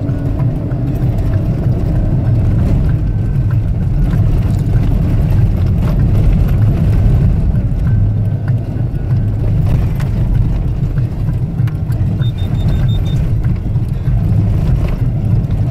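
4x4 driving on a rough sandy dirt track, heard from inside the cabin: a steady low rumble of engine and tyres.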